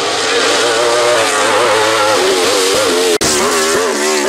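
Wolf Thunder GB08 sport prototype race car's engine at high revs, its pitch rising and falling again and again with the throttle. The sound drops out for an instant about three seconds in.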